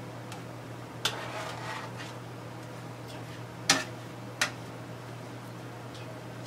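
Three sharp knocks of a cooking utensil against a skillet, the loudest a little past halfway, over a steady low hum.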